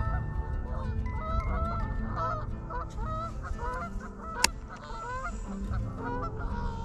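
A continuous chorus of many short, overlapping honking calls, over a low wind rumble on the microphone. A single sharp click comes about four and a half seconds in.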